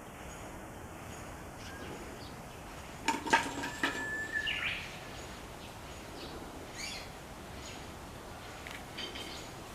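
A quick cluster of sharp knocks and clicks about three seconds in, then a few fainter ones later, from a hollow bamboo-tube feeder being knocked and worked by mandrills, over steady outdoor background noise with a brief bird-like chirp.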